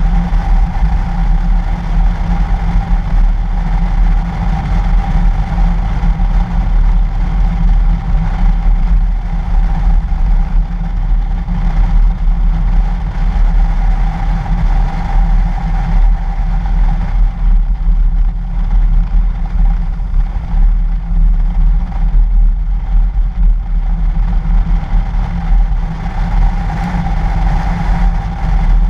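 Toyota FJ Cruiser driving steadily along a snow-covered road, heard from a camera mounted outside on its body. A loud, steady low rumble of the drive and wind on the microphone, with a steady mid-pitched hum above it.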